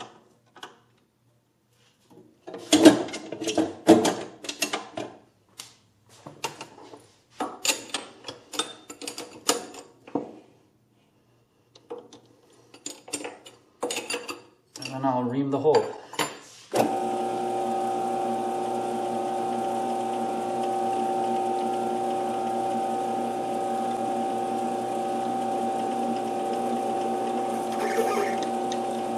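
Scattered clicks and clatter of metal tooling being handled. About two-thirds of the way in, a metal lathe starts and runs steadily at its lowest speed, 125 RPM, with a steady hum carrying several held tones, ready for reaming a bronze workpiece.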